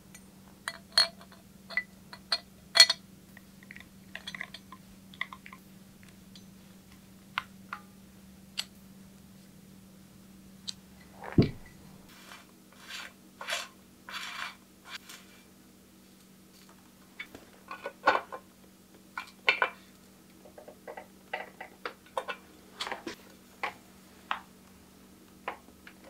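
Scattered light clicks, clinks and taps of hard bicycle parts being handled and fitted, with one louder thump about halfway through. In the second half these come from the bottom bracket cups being threaded into the frame's shell by hand.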